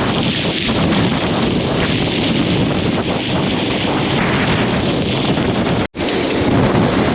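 Strong hurricane wind blasting across the microphone in a steady rush of noise. The sound cuts out abruptly for an instant about six seconds in.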